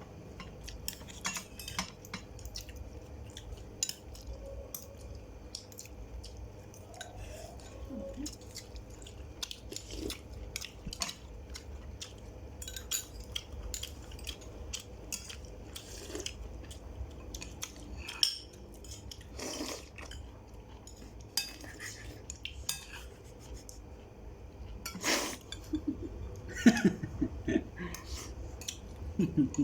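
Utensils clinking and knocking against dishes: many small sharp clicks, with a few louder knocks in the last few seconds, over a low steady hum.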